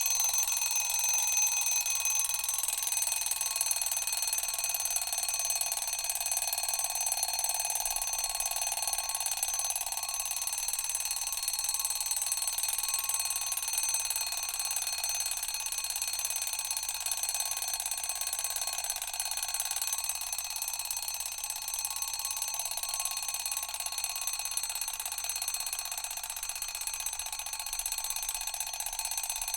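Mechanical alarm clock ringing continuously. Its bell gives a steady, high ring that eases off a little near the end.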